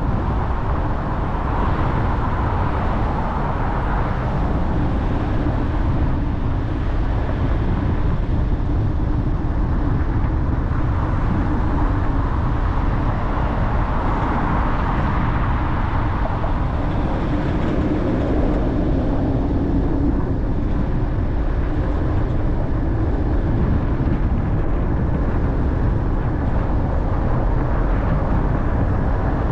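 Car driving on city streets: steady road and tyre noise with the low hum of the engine, its pitch drifting gently.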